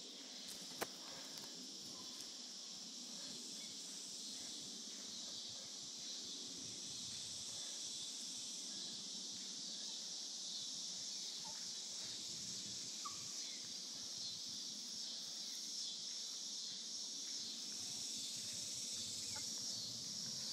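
Steady high-pitched chorus of insects, with a few faint short chirps.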